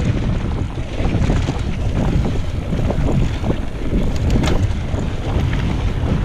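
Wind buffeting a GoPro action camera's microphone during a mountain bike ride, a steady low rumble with a few scattered sharp clicks.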